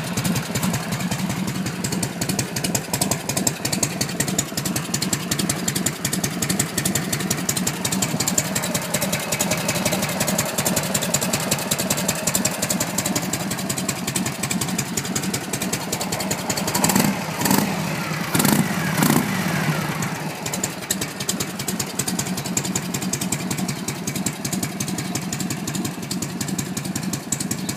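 1972 Harley-Davidson Shovelhead V-twin motorcycle engine idling with an even, steady beat. About two-thirds of the way through, the throttle is blipped a few times, rising and falling in pitch, before the engine settles back to idle.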